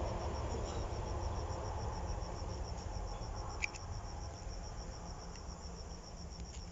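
An insect, cricket-like, chirping in a fast, even, unbroken pulse, over the low rumble of road traffic slowly fading away.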